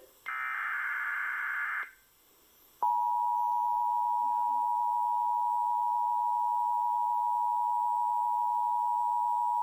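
Emergency Alert System header for a severe thunderstorm warning: the last burst of warbling SAME digital data for about a second and a half, then after a short gap a steady attention tone starts about three seconds in and holds.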